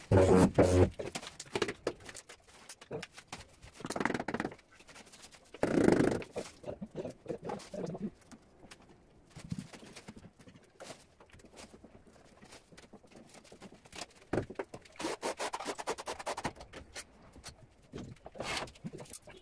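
A handheld tile vibrator buzzes steadily on a freshly laid porcelain floor tile and stops just under a second in. Scattered knocks, clicks and scrapes of floor-tiling work follow, with a few louder sounds about four, six and fifteen seconds in.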